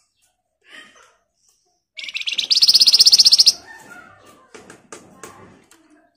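Caged Flamboyan babbler giving a loud, very rapid, drill-like rattling trill (the 'ngebren' or 'nyerecet' song) lasting about a second and a half from about two seconds in, followed by softer chips and clicks.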